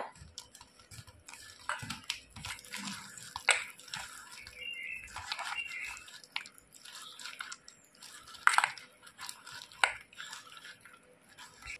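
Wet squelching and slapping of a bare hand kneading gram-flour batter in a steel bowl, in irregular strokes with small clicks.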